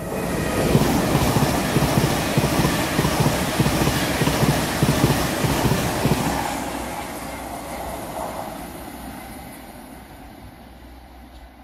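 LNER Azuma high-speed train passing close below at speed, a dense rushing rumble of wheels on rail. It is loudest for the first six seconds or so, then fades steadily as the train draws away.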